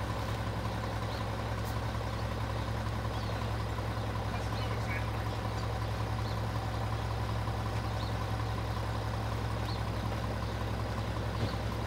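Mack MR garbage truck's diesel engine idling steadily, a constant low hum.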